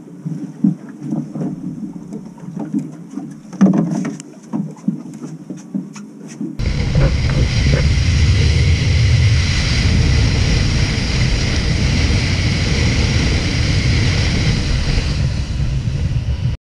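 Scattered knocks and clicks on a small fishing boat, then about six and a half seconds in a sudden cut to loud, steady rushing and buffeting noise of the boat running with wind on the microphone, which stops abruptly near the end.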